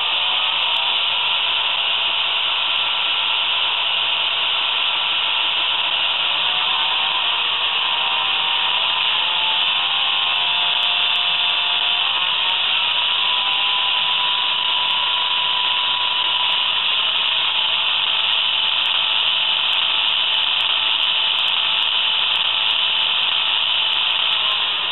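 Sound decoder of a B-Models H0-scale NMBS/SNCB class 55 diesel locomotive model (5515) playing its diesel engine sound through the model's small loudspeaker: a steady, hissy engine noise with engine tones that rise and fall about 8 to 17 seconds in.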